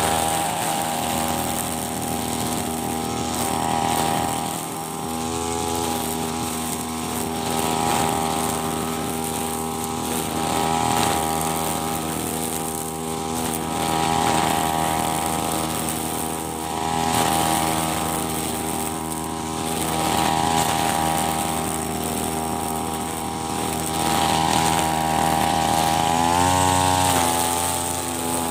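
Backpack brush cutter's small petrol engine running at high revs while cutting grass, its note swelling and easing about every three seconds. Near the end the revs drop briefly and pick up again.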